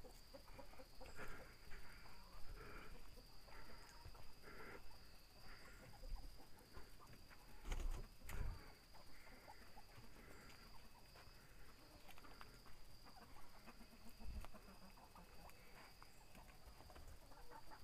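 Backyard chickens clucking softly now and then, with a couple of dull thumps about eight seconds in, over a steady thin high hum.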